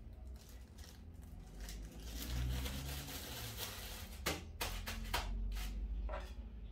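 Thin plastic bag crinkling as it is handled and packed with cut strawberries, followed by a few sharp clicks in the second half, over a low steady hum.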